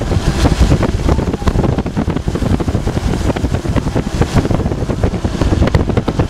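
Wind buffeting the microphone over the steady rumble of a moving car.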